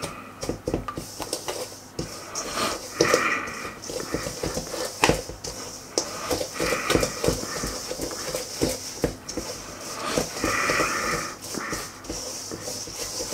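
Wooden spoon stirring a thick mix of ground almonds, sugar and raw eggs in a stainless steel bowl, with many quick knocks and scrapes against the metal sides. Three short breathy sounds come through at intervals of about four seconds.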